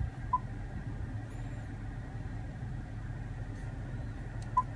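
Two short, high beeps from the Range Rover's infotainment touchscreen as its buttons are pressed, one just after the start and one near the end, over a steady low hum in the cabin.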